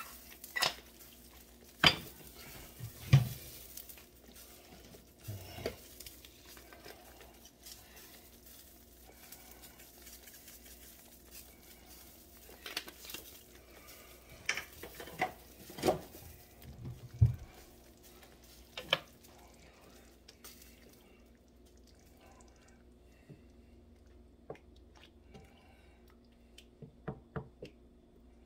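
Scattered clinks and knocks of kitchen utensils and containers being handled around a frying pan of sauce, with a few louder knocks in the first few seconds and in the middle, thinning to a few light ticks in the last third. A faint steady hum lies underneath.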